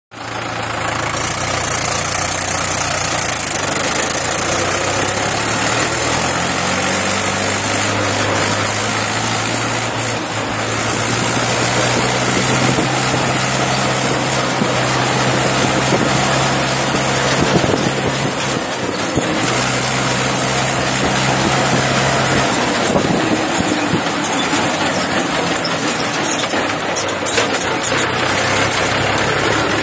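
Mahindra tractor's diesel engine running hard at speed, heard from the driver's seat under a heavy rush of wind and rattle noise. The engine note climbs a little in the first several seconds, then holds steady.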